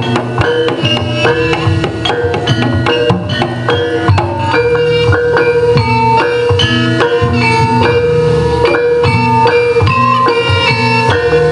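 Javanese jaranan gamelan music, amplified: kendang drums under quick runs of struck metallophone notes, with a steady held tone beneath.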